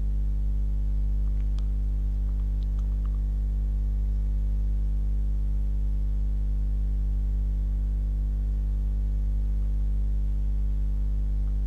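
Steady electrical mains hum: a low buzz with a ladder of even overtones, unchanging throughout. A couple of faint clicks come about one and a half and three seconds in.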